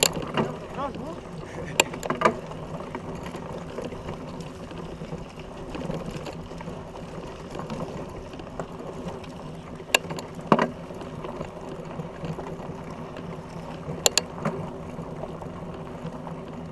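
Fat bike rolling over a gravelly dirt trail: steady tyre and drivetrain noise, with sharp knocks and rattles in pairs near the start, about ten seconds in and about fourteen seconds in.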